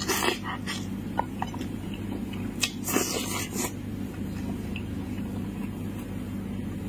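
Eating sounds: a man biting and sucking spiced meat off a cooked sheep's head and chewing, with a few short wet bursts about three seconds in, over a steady low hum.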